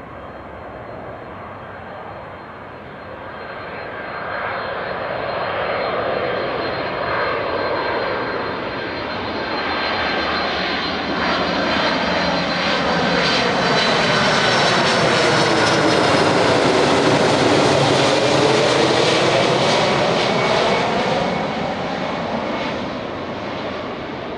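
Boeing 767-200ER twin jet engines roaring as the airliner passes close by, with a high engine whine over the roar. It grows louder to a peak about two-thirds of the way through, then starts to fade.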